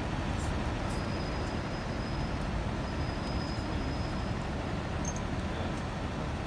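Steady low rumble of city street noise, with no single sound standing out.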